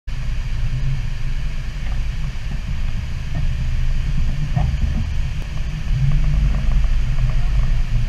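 Steady low rumble of an inflatable tour boat under way on a river: its outboard engines running and wind buffeting the microphone.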